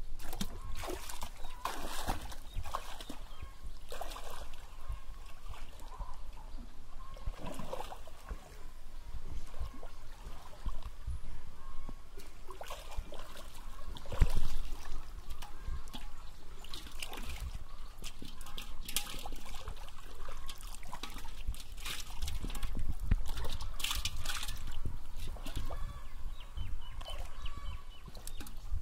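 Pond water sloshing and splashing irregularly around a man wading chest-deep and groping underwater with his hands, with one louder splash about halfway through.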